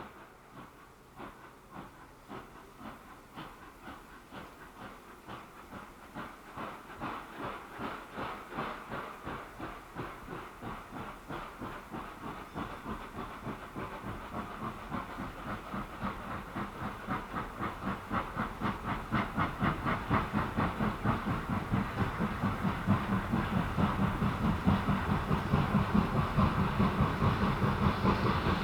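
Steam train approaching: a steady rhythm of beats with hiss, growing steadily louder as it nears.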